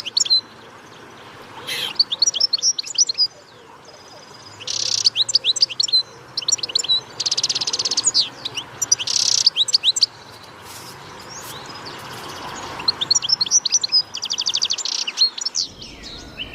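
Small birds chirping: repeated bursts of rapid high trills and quick down-slurred chirps, with short pauses between them.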